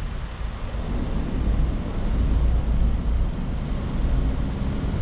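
Car driving along a city street, heard from a car-mounted action camera: a steady rumble of engine and road noise with uneven low wind buffeting on the microphone.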